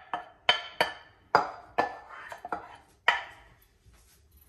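A utensil knocking against a mixing bowl about eight times, roughly two knocks a second, each with a short ring, then stopping about three seconds in.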